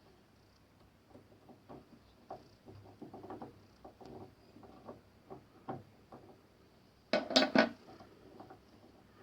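Small metal clicks and knocks of a wrench unscrewing and taking apart a steel milling fixture, scattered and irregular, with a louder clatter of metal parts about seven seconds in.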